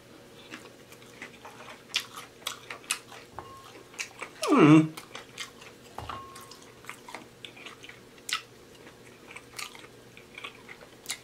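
Close-up chewing and smacking of fried chicken wings, with many short wet clicks and crunches. About four and a half seconds in comes a short hum from the eater that slides down in pitch.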